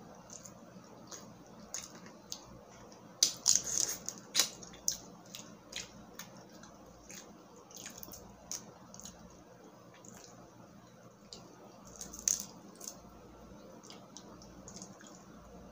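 Fingers peeling the shell off a cooked, sauce-coated whole shrimp: wet crackles and squishes of shell cracking and pulling away. The crackles come loudest about three to four seconds in and again near twelve seconds.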